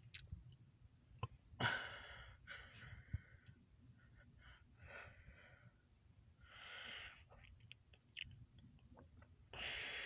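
Faint breathing close to the microphone: about five short, hissy breaths over a low steady rumble, with a few small clicks.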